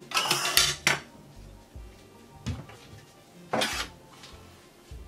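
Kitchen utensils and cookware being handled and set down on a worktop: a clatter of short knocks in the first second, then single knocks about two and a half and three and a half seconds in.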